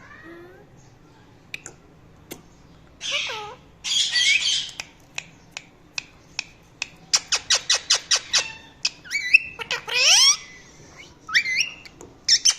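Indian ringneck parakeet calling: harsh squawks with sweeping pitch glides, and a quick run of about eight sharp chirps a little past halfway.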